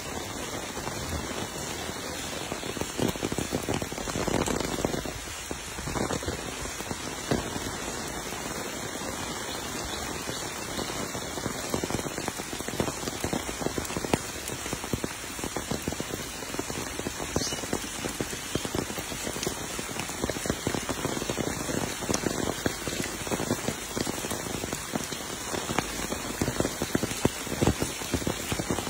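Steady rain falling: an even hiss made of many close, fine drop ticks that keeps on without a break.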